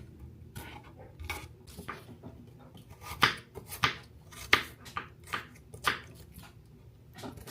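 Kitchen knife cutting celery on a cutting board: a run of sharp knocks, a few light ones, then louder, more regular chops about two-thirds of a second apart.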